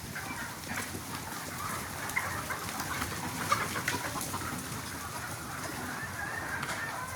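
A flock of Sonali chickens clucking, with many short, scattered calls overlapping.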